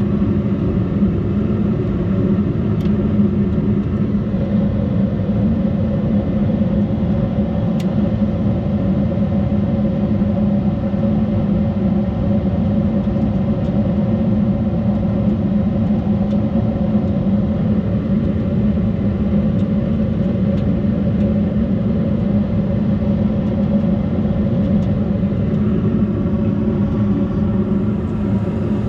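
S9V2 gas furnace running on first stage, a steady, even hum with a low drone.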